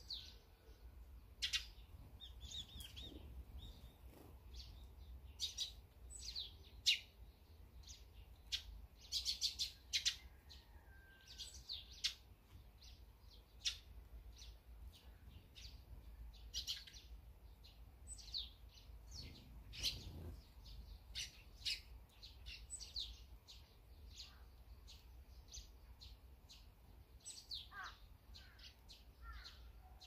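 Eurasian tree sparrows chirping: many short, sharp chirps at irregular intervals, some overlapping, over a faint low background rumble.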